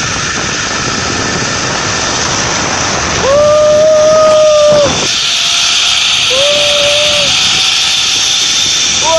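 Steady hiss of a zip-line trolley running fast along the steel cable, with wind rushing past the microphone. A long held yell of the rider rises over it about three seconds in, and a shorter one comes about six seconds in.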